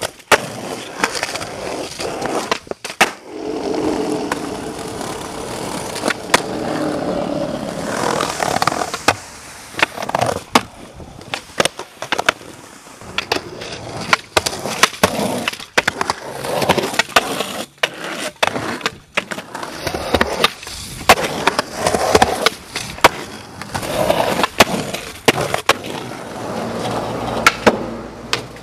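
Skateboard wheels rolling over concrete and asphalt, broken again and again by sharp clacks of the board popping, hitting and landing.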